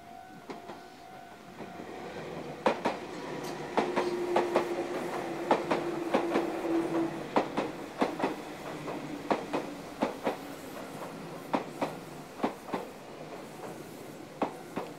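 Meitetsu electric trains passing close, their wheels clacking irregularly over rail joints and points over a steady rumble. A steady tone stops about two seconds in, and a whine runs from about four to seven seconds in.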